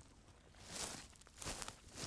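Footsteps crunching through leaves: two steps, under a second apart, with the next one starting at the very end.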